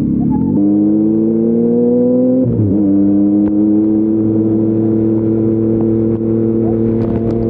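Yamaha MT-09's 890 cc inline-three engine breathing through an Akrapovic full-system exhaust, accelerating with its pitch climbing for about two seconds. A brief break in the sound about two and a half seconds in marks a gear change, after which it runs steadily, slowly rising in pitch.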